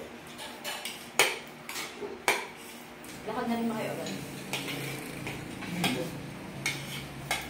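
Metal spoons and forks clinking and scraping on ceramic plates as people eat, with two sharper clinks about one and two seconds in. Faint voices murmur in the second half.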